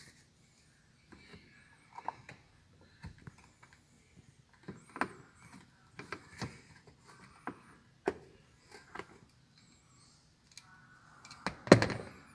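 Scattered clicks and scrapes of a hand tool turning out a screw from plastic interior trim inside a car, with a louder cluster of knocks near the end.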